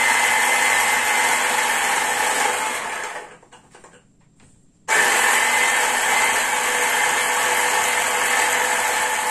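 Electric mini chopper running with a steady whir, grinding herbs and spices. About 3 seconds in the motor stops and winds down, with a few faint rattles. It starts again abruptly about 2 seconds later.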